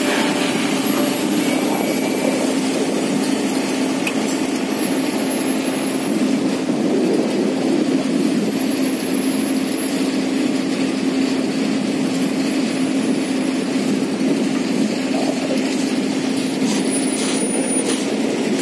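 Hydraulic excavator's engine running steadily, with a constant low hum and no change in speed.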